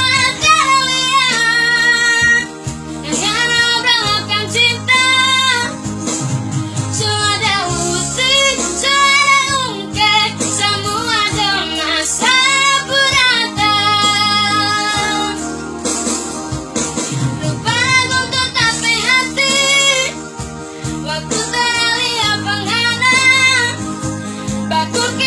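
A child singing a song in a high, clear voice, holding notes with a wavering vibrato over a steady instrumental accompaniment.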